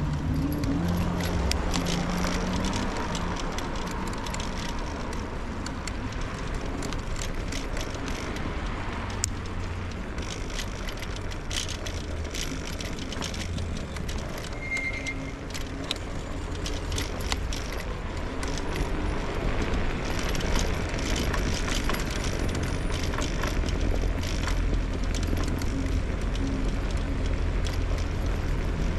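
Electric scooter ride on city streets: a steady low rumble of the wheels on the pavement, with frequent small rattles and clicks.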